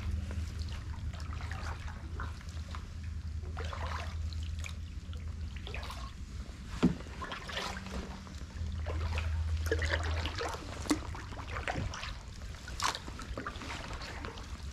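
Canoe paddling on still floodwater: water trickling and dripping off the paddle with small splashes at each stroke, and one sharp knock about seven seconds in.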